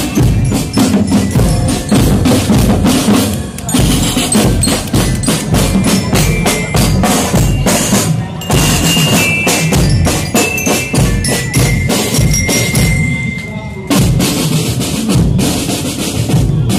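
A marching band's drum section playing a steady beat on bass and snare drums. Short high bell lyre (glockenspiel) notes ring out over the drums in the middle.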